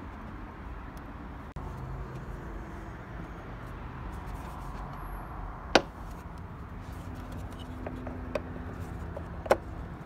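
Plastic engine airbox lid and intake tube being pressed back into place by hand, with three sharp plastic clicks as it seats: the loudest a little over halfway through, two lighter ones near the end.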